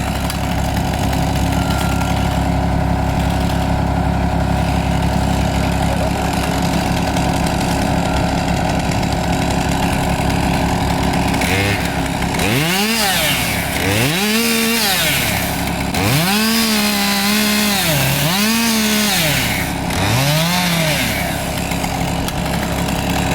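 Gas chainsaw cutting through a log, running steadily at first, then revved up and down about five times in the second half as the cut is finished.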